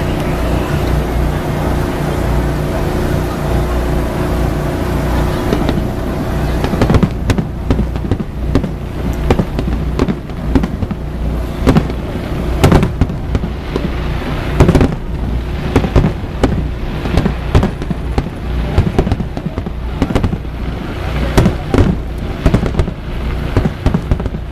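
Fireworks display: aerial shells bursting in rapid, irregular succession from about seven seconds in, with booms and crackles echoing after each. Before that, a steady low hum with held tones.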